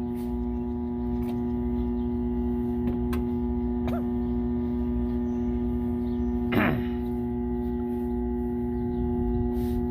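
Steady hum made of a couple of fixed tones, with a low rumble beneath. A few faint clicks are scattered through it, and a brief pitched sound like a short voice comes about six and a half seconds in.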